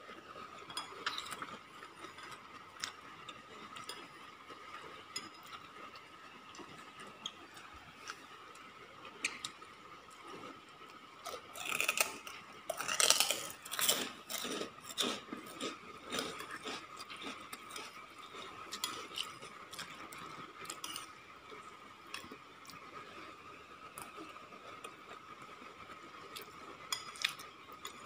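A metal spoon scraping and clinking against a ceramic bowl while scooping up rice, in scattered light taps with a busier, louder run of clinks about halfway through. A faint steady high hum runs underneath.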